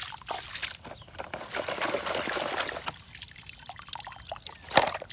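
Water trickling and splashing as toy vehicles are shaken and rinsed in a container of water, with small plastic clicks and one sharp knock near the end.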